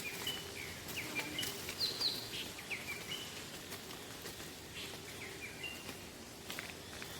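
Small birds chirping outdoors: many short, sharp, quick chirps, busiest in the first three seconds and again a little after the middle, over a faint steady background hiss with a few soft clicks.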